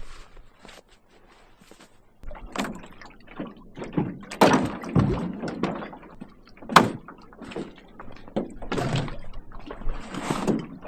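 Camping gear being handled and packed up: irregular clunks, knocks and rustling that start about two seconds in, with one sharp knock near the middle.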